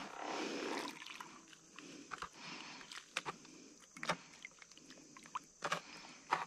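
Water sloshing in a plastic gold pan as it is swirled and dipped in a shallow creek: a rush of water for about the first second, then scattered sharp splashes and drips as water washes out over the rim.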